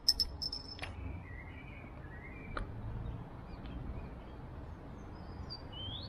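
A few sharp clinks from a glass beer bottle being handled in the first second, then faint birds chirping, short rising and falling calls scattered through the rest, over a low steady outdoor rumble.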